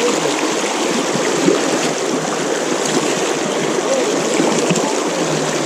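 Mountain stream water rushing steadily and gurgling close by.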